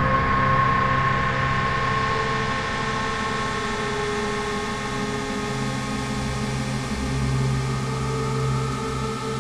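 Dark ambient electronic drone: layered sustained tones over a steady hiss. A low hum drops away for a few seconds and returns, and a deeper rumble swells near the end.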